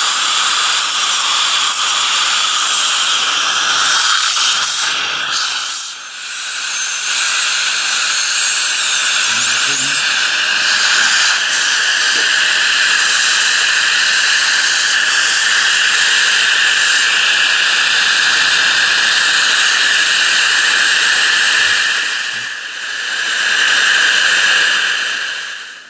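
Dental high-speed drill and suction running in the mouth while a metal crown of the bridge is opened: a loud, steady hiss that dips briefly about six seconds in and again near the end.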